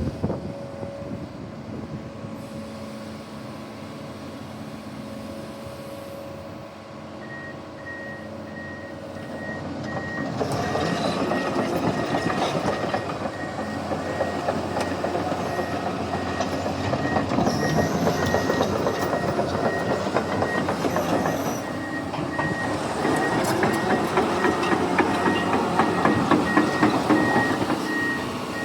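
Komatsu PC210LC-11 crawler excavator: the diesel engine runs steadily, then its travel alarm starts a regular high beeping about a quarter of the way in. From about ten seconds in, the machine tracks along with its steel tracks clattering loudly.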